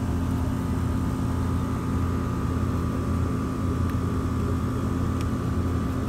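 Steady machine hum with a constant higher whine, unchanging throughout.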